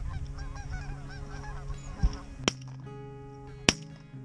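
Canada geese honking and clucking over a decoy spread, then three shotgun shots in quick order in the second half, the last the loudest. Guitar music comes in under the shots.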